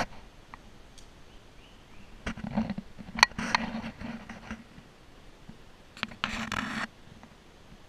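Scratching and rubbing handling noise on an action camera as its wearer clambers barefoot over rock, in three short bursts.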